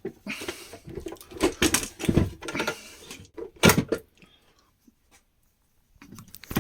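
Knocks and clatter of a Makita site radio's opened plastic housing and speaker being handled and turned over, going quiet about four seconds in.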